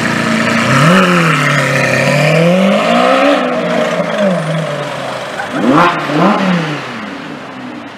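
Lamborghini Aventador SV's V12 revving as the car pulls away, its pitch climbing and dropping several times. About six seconds in come two quick, sharp revs, then the sound fades.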